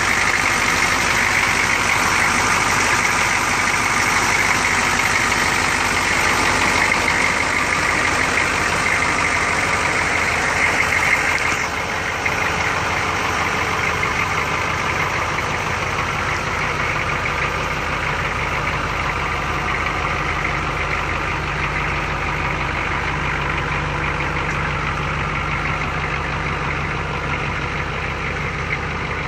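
A 1986 Chevrolet K30 CUCV's 6.2-litre V8 diesel idling steadily. It is duller and slightly quieter from about twelve seconds in.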